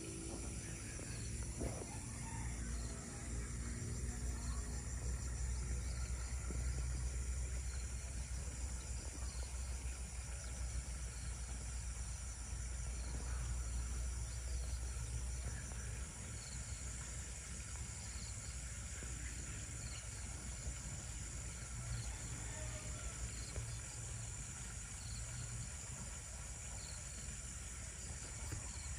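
Steady high-pitched insect chorus with scattered short chirps, over a low rumble that is strongest in the first half and eases off about halfway through.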